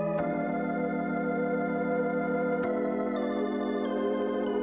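Background music of slow held chords. The chord changes about a quarter second in and again about two and a half seconds in, and its highest note steps downward several times toward the end.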